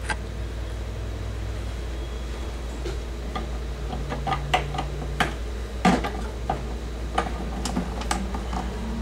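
Scattered plastic clicks and knocks of a power-supply cable connector being handled and pushed into its port inside a computer case, the loudest knock a little before the sixth second.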